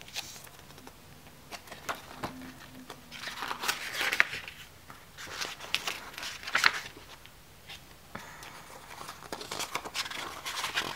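Pages of a photo book being turned by hand, several times, the paper swishing and rustling with each flip.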